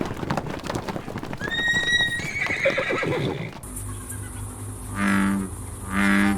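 Horse hooves clattering and a short whinny, cut off sharply about three and a half seconds in by music with a low steady tone and repeated notes.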